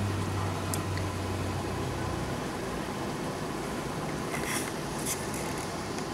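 Heavy rain pouring steadily onto pavement and parked cars. A low steady hum fades out about two seconds in, and a few sharp ticks stand out near the middle and end.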